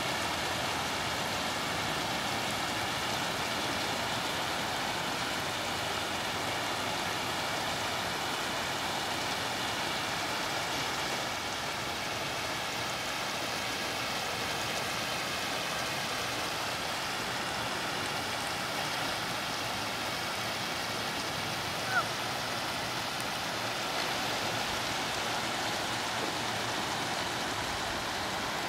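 Steady rush of water spilling over a low concrete weir. One brief high chirp sounds about three-quarters of the way through.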